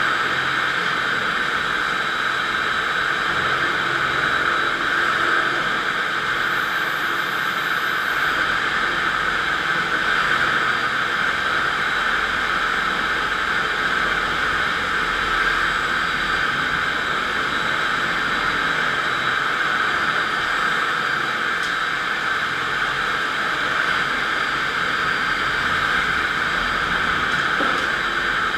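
FastPrep electric concrete floor grinder running under load, its 16-grit single-rhombus diamond grinding plates cutting a concrete floor. It is a steady, even grinding hiss that does not change.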